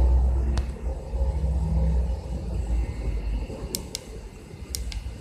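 Uneven low rumble with one sharp click about half a second in and several more sharp clicks, some in quick pairs, from about three and a half seconds on. The clicks are the controls of a battery charger being worked as its charging setting is adjusted.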